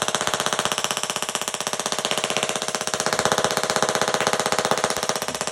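Tesla coil firing: a loud, steady buzz of rapid, evenly spaced spark discharges.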